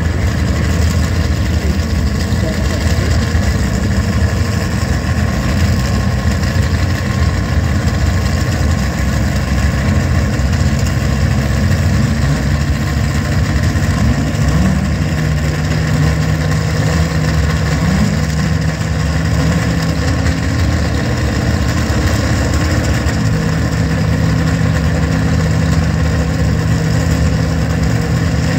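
Two drag-racing cars' engines idling at the start line, a loud, steady, rough idle with a couple of brief small rises in pitch around the middle.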